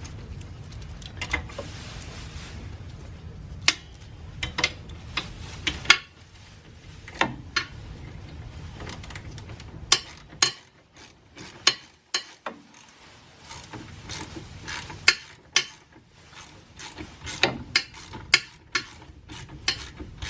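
Irregular metallic clicks and clinks of mounting bolts and a wheel hub assembly being handled and fitted into place by hand, with a low hum that stops about six seconds in.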